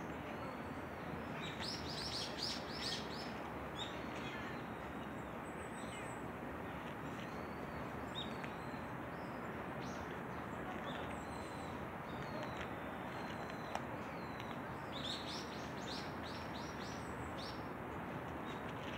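Small birds chirping, with quick runs of chirps about two seconds in and again near the end, over a steady background hiss.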